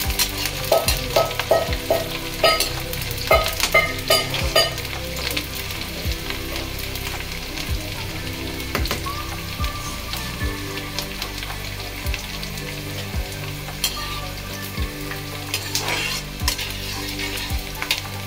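Sliced onions and green chillies sizzling in hot oil in a metal kadhai, with a slotted metal spatula clacking and scraping against the pan as they are stirred, the clacks thickest in the first few seconds and again briefly near the end.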